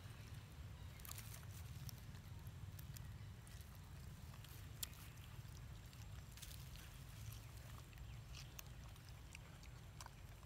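Faint ambience: a steady low rumble with scattered small clicks and rustles, and one sharper click about halfway through.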